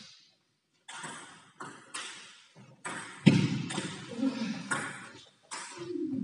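Table tennis ball in a rally: about ten sharp ticks of ball on bat and table, spaced roughly half a second to a second apart, each with a short echo.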